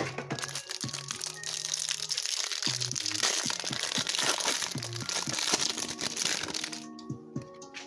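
Packaging of a trading-card hanger box crinkling and crackling as it is torn open and the cards are pulled out, over background music. The crinkling stops about seven seconds in.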